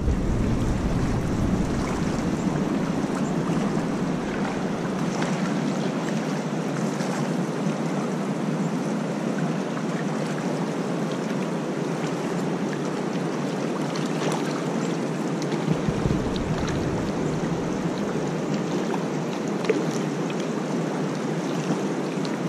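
Steady rush of river current flowing past, heard close to the water's surface.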